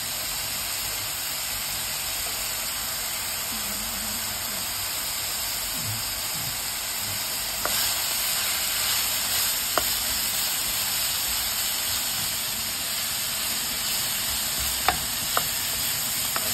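A shimeji mushroom, onion and chili stir-fry sizzling in a hot nonstick pan as it is stirred, now frying in oil once the mushrooms' water has cooked off. The sizzle gets louder about halfway through, and the spatula knocks sharply against the pan a few times.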